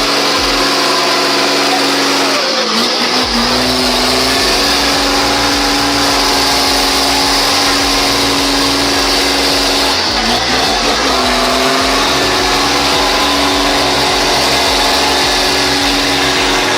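An engine running steadily under load, its pitch dipping and recovering twice.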